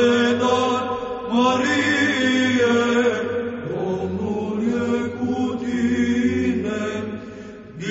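Romanian Orthodox Byzantine chant: a voice sings long, slowly gliding melismatic notes over a steady held drone (the ison). The phrase fades near the end and a new one begins.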